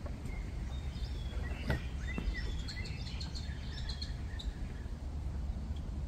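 Small birds chirping and twittering in short calls for the first few seconds, over a low steady rumble. One sharp knock sounds just under two seconds in.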